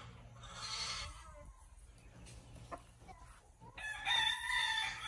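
A rooster crowing once: a single long, loud crow near the end.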